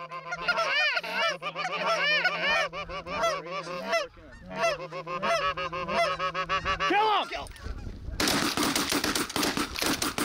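A flock of geese honking, many overlapping calls at once as the birds circle in. The calls stop and a rapid burst of shotgun fire breaks out about eight seconds in.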